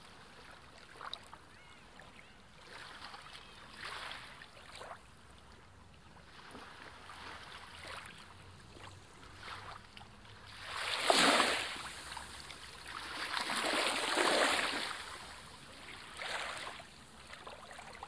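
Sea waves washing in. The noise swells and fades over a few seconds at a time, with the loudest wave about 11 seconds in and another broad swell a little later.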